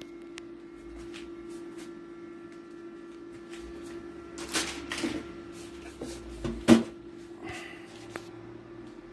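A steady hum with scattered light clicks and a handful of knocks from hard parts being handled, the sharpest knock about two-thirds of the way through.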